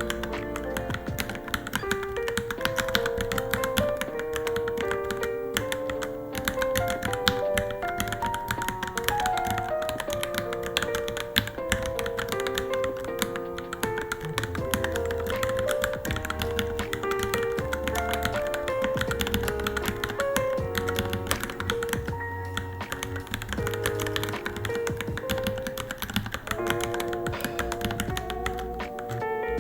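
Continuous fast typing on a Varmilo Minilo mechanical keyboard, a rapid patter of key clicks, heard over background music with a melody.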